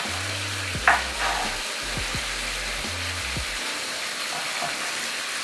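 Chopped tomatoes frying in oil in a karahi: a steady sizzle as the sauce cooks down, with a couple of short knocks in the first second. Background music plays underneath.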